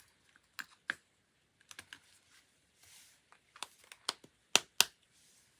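Scattered light clicks and taps of stationery being handled on a desk, with the two loudest coming in quick succession near the end.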